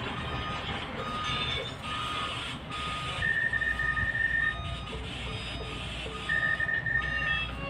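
Music with repeated short electronic beeping tones over a steady noisy background; two longer, louder high beeps come about three seconds in and again near the end.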